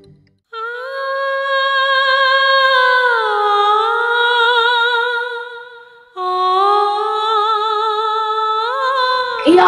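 Background music: a wordless hummed melody of two long held phrases with vibrato. The first phrase slides down a little partway through, and the second starts lower and rises near the end.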